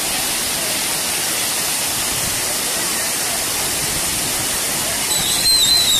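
A waterfall's heavy flow: a loud, steady rush of falling water. About five seconds in, a brief high, wavering whistle-like tone sounds over it.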